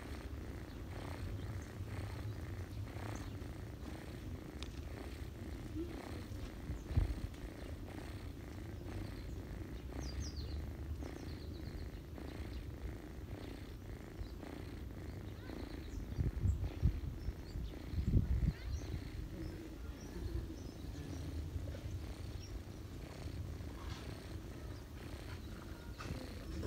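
A domestic cat purring steadily and close up while kittens nurse, a fast, even rumble. A few louder low bumps come through about seven seconds in and again around sixteen to eighteen seconds.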